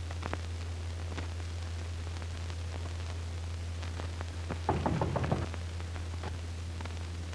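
Knuckles knocking on a door: a quick run of several knocks about five seconds in, over a steady low hum.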